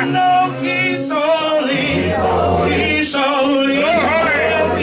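A man singing a gospel praise song through a microphone, with other voices joining in; the melody wavers with vibrato over steady low held notes.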